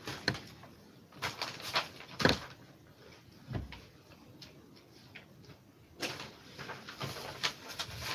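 Scattered knocks, clicks and rustling of someone handling things off camera, in irregular clusters with quiet gaps between.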